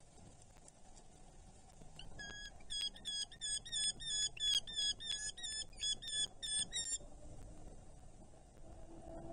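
Adult Eurasian hobby calling: a rapid series of sharp, repeated notes, about three or four a second, starting about two seconds in and lasting about five seconds.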